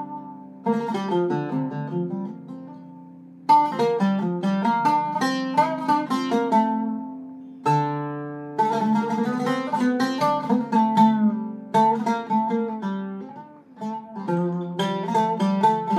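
Iraqi-style Zeryab oud with a cedar top and Kürschner strings in Fa-Fa tuning, played with a plectrum: fast runs of picked notes. The runs stop twice, and the last notes ring out and fade. A low note is struck before the second run starts.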